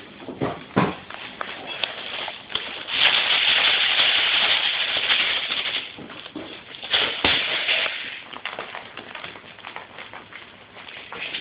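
Loud crinkling rustle for about three seconds in the middle, with sharp knocks about a second in and again about seven seconds in.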